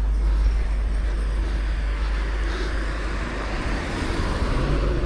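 Road traffic going by, with one vehicle's noise swelling and fading about two to four seconds in, over a steady low rumble.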